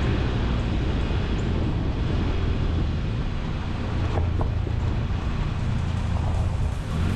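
Steady low tyre and road rumble from a 2022 Honda Civic Sport driving, picked up by a camera mounted outside at the front wheel, with wind on the microphone and a light tick about four seconds in.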